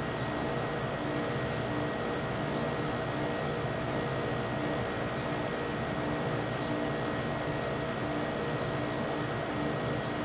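Amana 5P2MY 5,000 BTU window air conditioner running, its fan and rotary compressor making a steady hum with several steady tones. The compressor is building head pressure only very slowly, which the owner puts down to oil needing time to work through the aging compressor before its roller seals.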